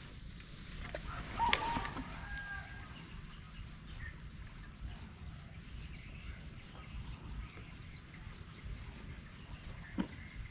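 Rural outdoor ambience: a steady high whine and low rumble, with scattered short bird chirps and one louder bird call about one and a half seconds in.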